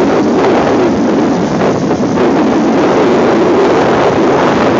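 Wind buffeting the microphone, steady and loud, over the diesel engines of hydraulic excavators working, a Komatsu digging soil nearest.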